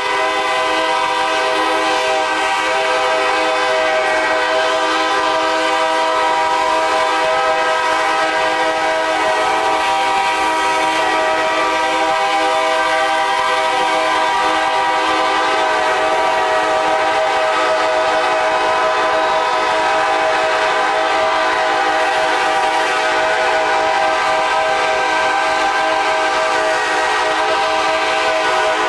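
Train air horns blowing together in one long, unbroken chord of several notes.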